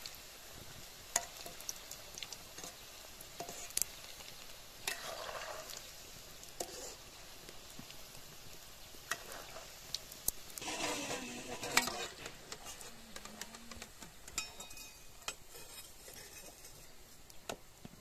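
Radish pakoras deep-frying in hot oil in a steel kadhai, a steady sizzle, with a perforated steel skimmer clinking and scraping against the pan as the fritters are turned and lifted out.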